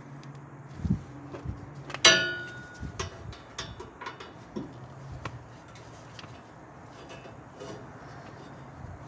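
Metal tools knocking and clanking on a snow blower during servicing, with one loud ringing metallic clank about two seconds in, followed by a run of lighter taps and clicks over a faint steady low hum.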